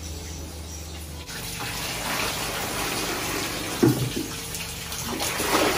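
Water poured from a large metal cooking pot into a plastic bucket, splashing and getting louder after the first second, with a knock just under four seconds in.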